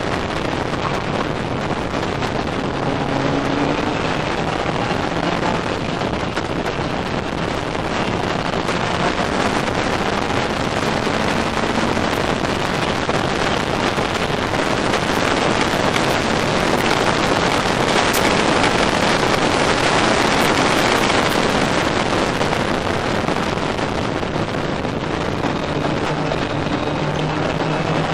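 Ginetta race car at racing speed, heard from its open cockpit: the engine running hard, largely buried under heavy wind rushing over the microphone. The rushing grows a little louder past the middle.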